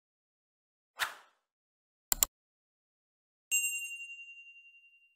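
Subscribe-button animation sound effects: a short whoosh about a second in, a quick double mouse click, then a bell ding that rings on and fades away.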